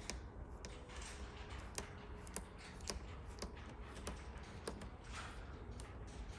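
Faint, irregular little clicks and ticks as matte vinyl wrap film is picked up and handled by the fingers at the edge of a hood scoop, over a low steady hum.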